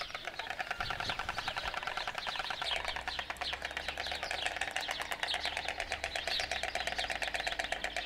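White storks clattering their bills: a rapid, continuous rattle of clicks, the greeting display a pair performs when one returns to the nest.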